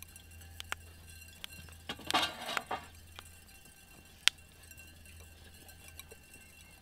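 Freshly fired raku tea bowls cooling, their crackle glaze giving off sharp glassy pings and clicks at irregular intervals as it crazes. A short, louder cluster of crackling comes about two seconds in.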